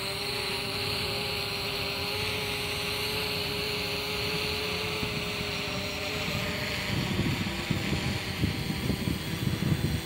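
FIMI X8 SE quadcopter hovering overhead, its propellers giving a steady hum with several held tones. In the second half, gusts of wind rumble on the microphone.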